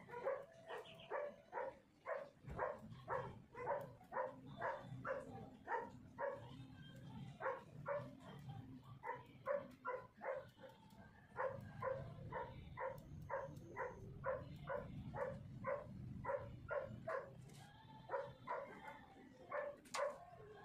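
A dog barking over and over, about two to three barks a second, in long runs with brief pauses.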